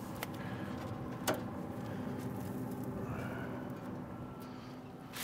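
A steady low hum, with one sharp click about a second in as gloved hands handle the brisket on the smoker's grate.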